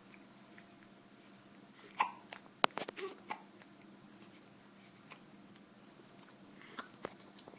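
Baby hiccuping: short, sharp hiccups, the loudest about two seconds in followed by a quick cluster, then a few more near the end.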